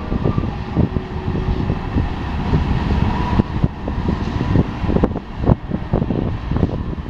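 Freight cars of a BNSF manifest train rolling past over a steady low rumble, their wheels clacking and knocking irregularly on the rails.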